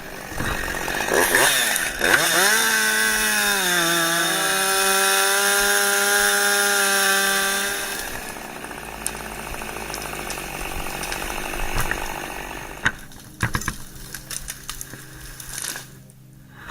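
Chainsaw revving high, then dropping in pitch as it bites into the cut and running steadily under load for several seconds before easing off. Near the end there is a quick run of sharp cracks and knocks.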